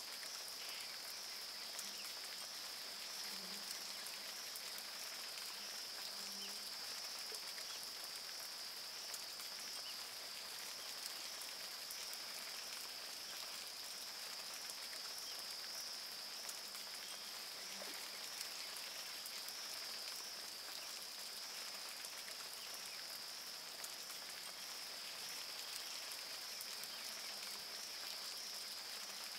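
A steady, high-pitched insect chorus with a slight even pulse, over a faint background hiss.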